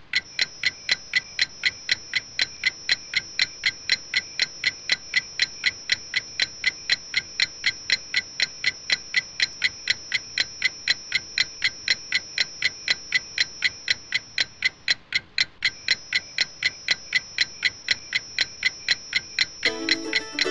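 Clock ticking fast and evenly, with a brief break about two-thirds of the way through. Near the end a plucked-string tune starts up over the ticking.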